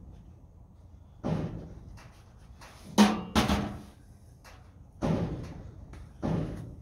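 Repeated loud clunks and bangs from the old barn's structure knocking in the wind, about five in a few seconds. The loudest comes about three seconds in and rings briefly.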